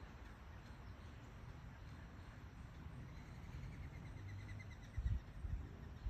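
Soft steady hiss of light morning rain, with a faint rapid trill about halfway through and two dull low thumps near the end.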